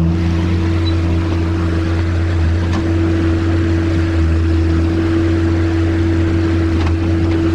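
Skid steer loader's engine running steadily at an even speed, with a couple of faint knocks.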